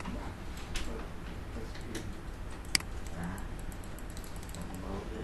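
Sharp clicks of a computer mouse, a few in a row over several seconds, the loudest about two and a half seconds in, followed by a quick run of faint ticks. A low steady hum runs underneath.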